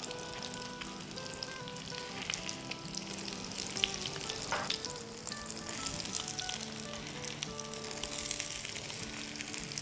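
Breaded salmon cutlets sizzling and crackling in shallow oil in a frying pan, with a few clicks as a spatula turns them over. Soft background music plays underneath.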